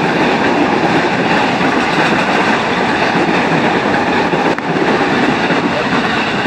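KRL electric commuter train cars passing close by: a steady, loud rumble and rattle of wheels on the rails.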